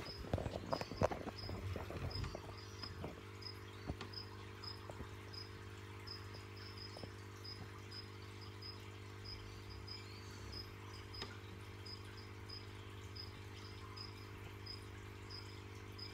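A cricket chirping steadily in short, high chirps about twice a second, over a steady low hum. Knocks and rustles of the phone being handled in the first few seconds are the loudest sounds.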